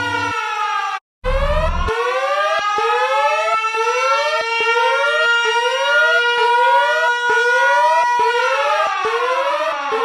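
Electronic EAS-style emergency alarm tones: a steady chord of held tones cuts off under half a second in, and after a brief gap a new alarm starts with a short low buzz. The new alarm has short rising sweeps repeating about twice a second over held tones and slower siren-like glides.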